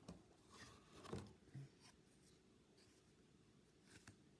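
Faint, scattered rustling and scraping of hands handling trading cards and their packaging, in a few short strokes in the first second or two and once more near the end.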